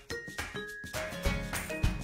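Background music of short repeated pitched notes, about three a second; a deep bass beat comes in a little over a second in.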